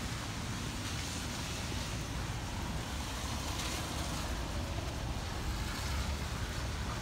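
Steady wind and rain noise from hurricane weather, with gusts buffeting the microphone as an uneven low rumble.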